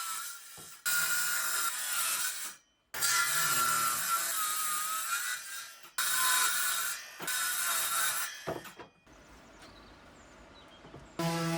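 Electric power saw cutting wood in three short runs that stop abruptly, its whine dipping under load as it cuts. Near the end, a steady low hum comes in.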